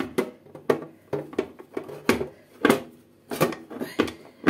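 Bread pan of a Redmond RBM-M1910 bread maker being worked into its seat: a dozen or so irregular sharp clicks and knocks until it clicks into place.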